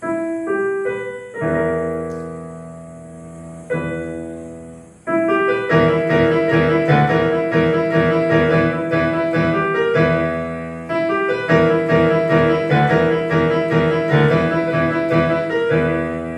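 Grand piano voice of a Casio CT-X9000IN electronic keyboard played: a few slow chords and notes at first, then a livelier passage of repeated chords with a melody from about five seconds in.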